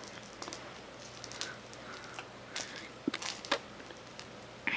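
Soft rustling and scattered small clicks and rattles of a cat batting at a butterfly wand toy with little balls inside, with a few sharper clicks a little past three seconds in.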